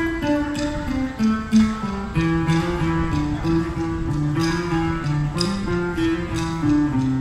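Acoustic guitars playing live: a run of notes stepping downward over the first two seconds, then a steady strummed pattern over low notes.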